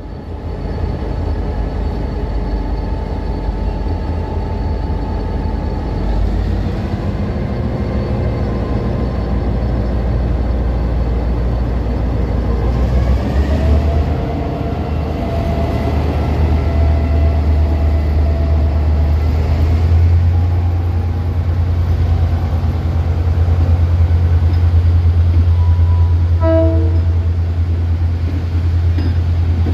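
Two diesel locomotives double-heading a passenger train, their engines rumbling as they pull slowly past, the rumble growing louder and deeper as the locomotives come alongside about halfway through. A brief tone sounds near the end as the coaches go by.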